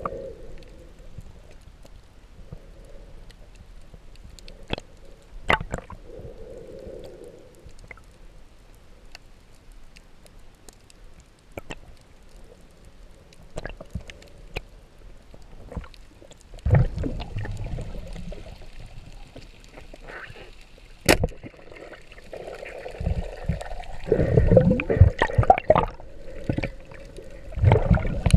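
Underwater sound picked up by a diver's camera: a low wash of water with scattered sharp clicks, and bursts of bubbling and knocking in the second half, loudest in the last few seconds.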